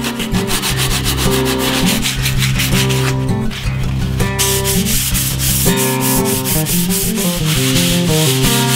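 Sheet of 150-grit silicone carbide sandpaper rubbed by hand over a latex-primed wooden headboard in fast back-and-forth strokes. It is sanding the grain-raised primer and dried spackle filler smooth.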